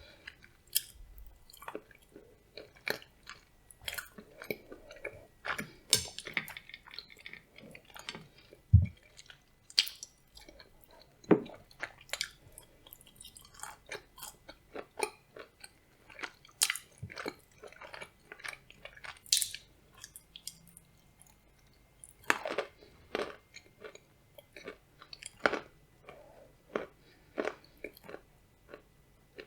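Close-miked chewing of blueberry soufflé with nuts: irregular wet mouth clicks and soft crunches of the nuts, with a few sharper, louder crunches.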